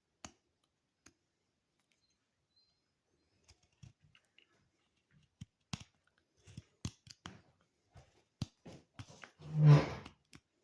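A knife being handled: a run of irregular sharp clicks and light knocks of metal and handle material. About nine and a half seconds in comes a brief loud vocal sound, much louder than the clicks.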